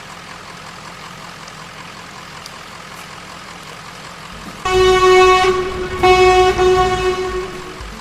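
A truck engine rumbles steadily, then a truck horn honks twice, about five and six seconds in, the second blast longer.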